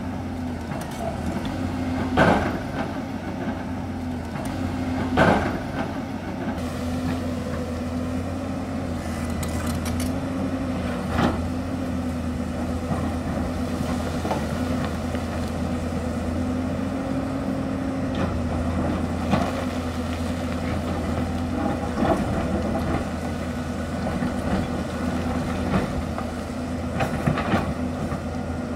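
Hyundai crawler excavator's diesel engine running steadily under load as it digs, with sharp knocks and clanks from the bucket striking the hillside every few seconds.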